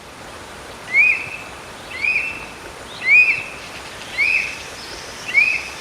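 Black eagle (Ictinaetus malaiensis) calling: five high-pitched notes about a second apart, each sweeping quickly up and then levelling off and trailing slightly down, over a steady hiss.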